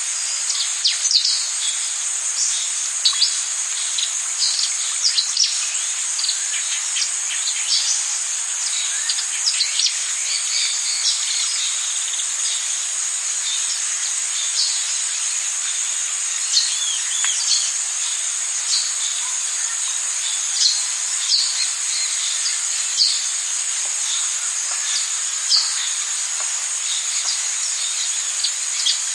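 Rainforest ambience: a steady, high-pitched drone of insects with many short bird chirps scattered over it, most frequent in the first dozen seconds.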